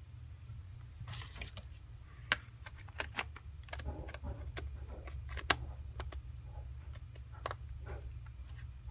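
Light clicks and taps of a smartphone and its hard plastic case being handled, scattered through, with some soft rustling, over a steady low hum.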